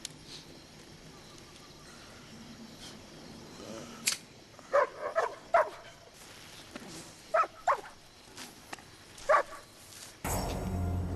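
A dog barking: a quick run of about four barks around five seconds in, two more a couple of seconds later and a single bark near the end, with a sharp click just before the first barks.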